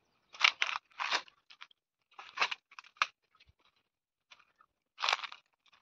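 Footsteps crunching on dry fallen leaves along a dirt trail, about five steps at an uneven walking pace.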